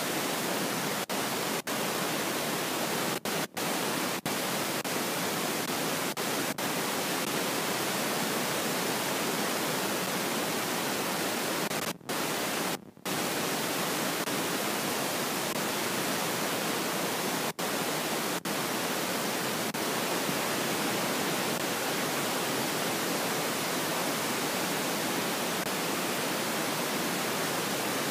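Steady hiss of static, with no speech or other sound standing out. The hiss cuts out briefly a dozen times, twice near the middle for about half a second.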